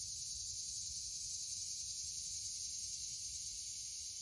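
A steady, high-pitched chorus of insects blending into one continuous hiss with no breaks, over a faint low rumble.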